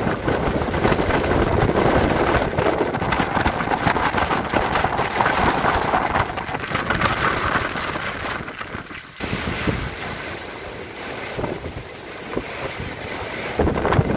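Tropical squall: strong gusting wind blasting across the microphone over choppy, rain-lashed water. About nine seconds in the sound drops back to a thinner, steadier hiss of wind and rain.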